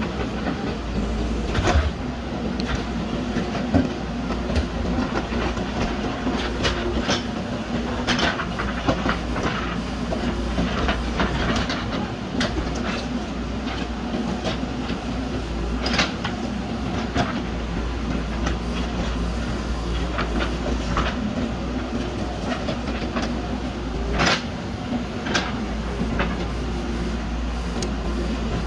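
JCB backhoe loader's diesel engine running steadily under digging work, with frequent metallic clanks and knocks as the machine works the mud.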